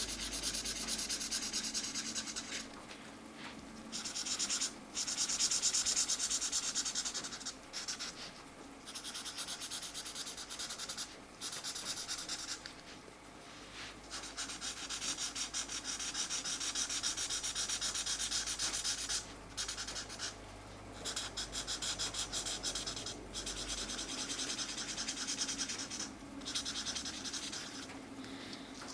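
Felt-tip marker scratching across colouring-book paper in fast back-and-forth strokes, filling in colour, with brief pauses every few seconds as the hand lifts or moves on.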